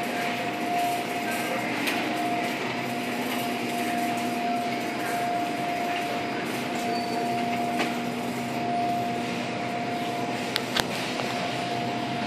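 Wire shopping cart rolling and rattling over a store floor, with a steady hum underneath and two sharp clicks about ten and a half seconds in.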